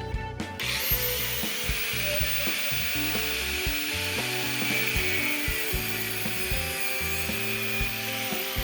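A grinder spins up about half a second in and cuts through a hydro-boost high-pressure line with a steady hiss, then winds down near the end. Background music plays underneath.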